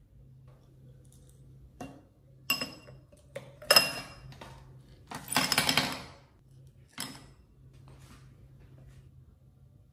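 Ice cubes dropped into a stemmed glass, clinking against the glass and each other: a few single clinks, then a clattering tumble of ice lasting about a second, and one last clink a little later.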